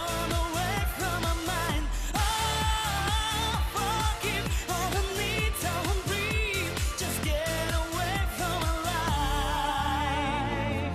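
Dance-pop music: a singing voice with vibrato over a steady kick-drum beat, about two beats a second.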